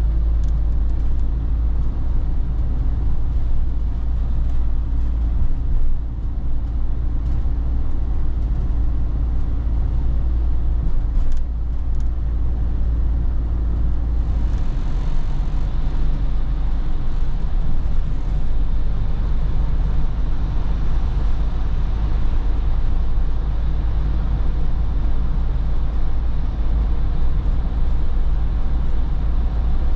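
Inside the cab of a camper van with a Ford 2.0 diesel engine, driving at a steady pace: a continuous low engine and road rumble. From about halfway a brighter hiss of tyres on the wet road grows in.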